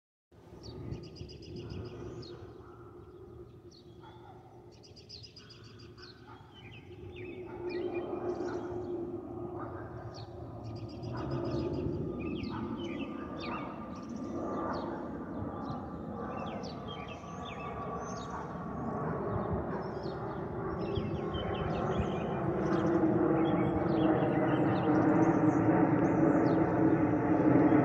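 Airbus A320neo jet with Pratt & Whitney PW1127G geared turbofans passing overhead: a rumble with a steady hum that grows louder over the whole stretch. Small birds chirp and call throughout, most noticeable in the first few seconds before the jet takes over.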